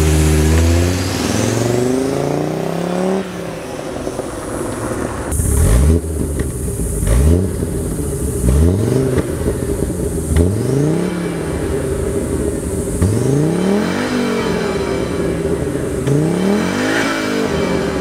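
1983 Audi Quattro's turbocharged five-cylinder engine running through a custom turbo-back exhaust and revved in a string of short throttle blips, each rising and falling back to idle. Its idle is lumpy, as if it had an aggressive cam, which the owner puts down to the K-Jetronic fuel injection being unhappy after the car has sat.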